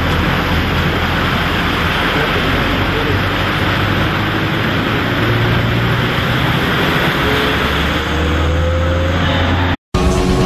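A bus engine running as it drives through floodwater, over a steady rush of water splashing up from its wheels. The sound cuts out suddenly near the end, and music begins.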